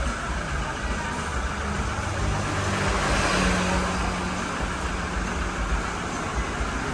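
Motor vehicle road noise: engine hum and rumble with a steady hiss, growing louder about three seconds in and then easing off.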